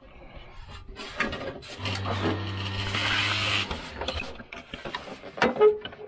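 Metal clicking and rattling of a truck door's window winder mechanism being worked on by hand, with a small motor whirring steadily for about two seconds in the middle and a sharp knock near the end.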